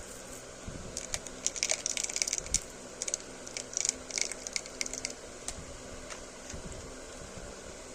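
Candy packaging being handled: a run of light clicks and short crinkly rustles of plastic wrappers, busiest in the first half and then thinning to a few taps.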